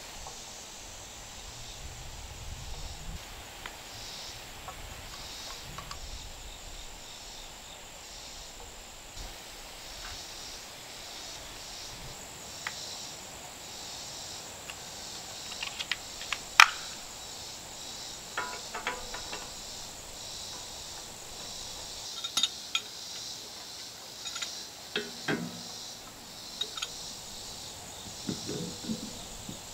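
Insects chirring steadily in a pulsing high drone. From about halfway there are scattered sharp clicks and metal knocks as a hand wrench works on a black gas pipe fitting; one sharp click is the loudest sound.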